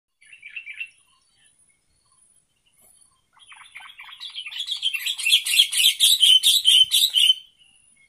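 Sooty-headed bulbuls (kutilang) calling: a short chatter near the start, then a rapid run of chattering notes from about three and a half seconds in that grows loud and breaks off shortly before the end.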